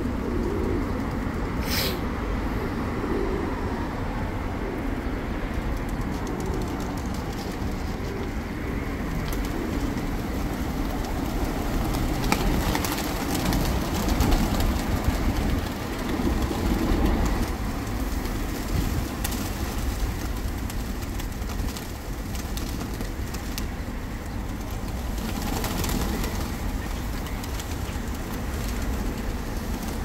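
A large flock of feral pigeons cooing together. Around the middle there is a louder flurry of wing flapping as many of the birds take off and flutter around the scattered grain.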